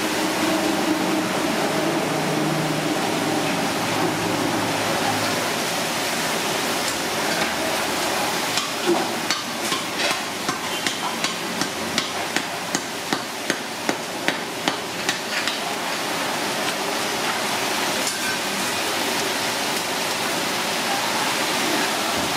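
A steady background noise with a run of sharp knocks, about two a second, from about eight to fifteen seconds in.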